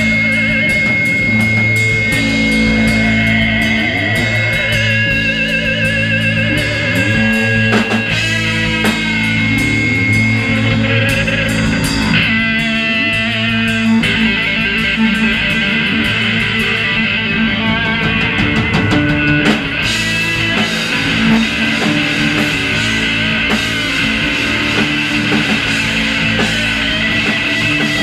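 Live rock band playing loud: electric guitar, bass guitar and drum kit. A steady high tone is held through roughly the first ten seconds, and the sound gets fuller about twenty seconds in.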